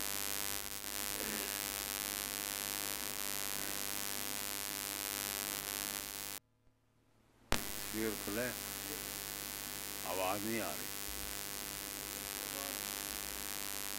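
Steady electrical mains hum with hiss in the microphone audio. It cuts out completely for about a second in the middle and comes back with a sharp click, and a couple of brief, faint voice sounds follow.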